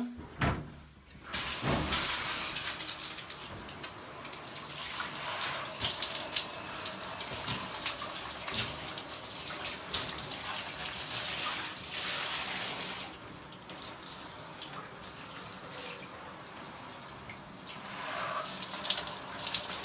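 Handheld shower head spraying water onto a tiled wall and chrome shower fittings, a steady hiss that starts just over a second in and gets quieter about two-thirds of the way through.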